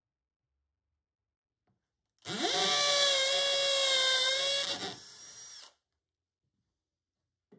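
Trend cordless drill boring a hole into OSB board. The motor whines quickly up to speed about two seconds in, runs steadily for about two and a half seconds, then drops in level and stops about a second later.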